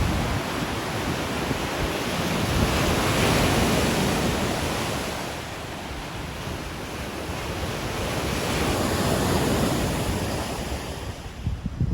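Lake Michigan waves breaking and washing ashore: a continuous surf rush that swells twice and eases between, with wind buffeting the microphone.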